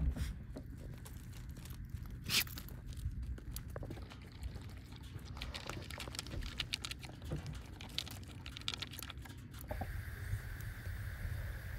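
Crunching footsteps on gravel over a low rumble, with scattered clicks. About ten seconds in, this gives way to a steady hum and hiss.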